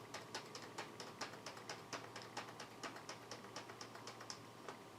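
Computer keyboard keys tapped in a quick, even run, about four to five presses a second, as BIOS menus are stepped through; the taps thin out and stop shortly before the end.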